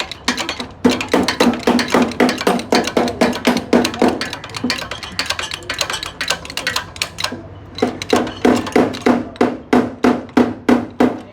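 Rapid hammer blows, about four a second, each with a short ringing note, done as suspension repair work. The hammering comes in two runs, with lighter tapping and clicking in between.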